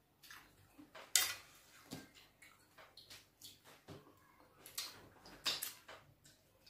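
Close-miked mouth sounds of eating fufu and bitter leaf soup by hand: wet lip smacks, chewing and sucking soup off the fingers. Sharp smacks come about a second in, near two and four seconds, and in a quick cluster between five and six seconds.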